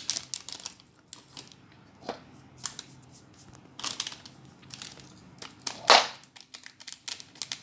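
Irregular scraping, rustling and clicking from handling the baking soda and bowl while adding baking soda to glue for slime, with one louder scrape about six seconds in.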